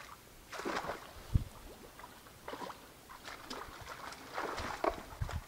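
Irregular splashing and sloshing of someone wading through shallow flooded marsh water, with a dull thump about a second in.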